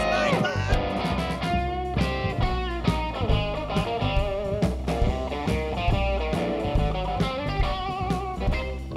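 Rockabilly band playing live: a hollow-body electric guitar plays over a plucked upright bass, with a few bent guitar notes at the start.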